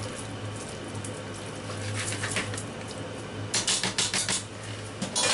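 Spoon scraping and knocking against a glass dish of gnocchi, with a cluster of sharp clinks and clatter about three and a half seconds in, over a steady low hum.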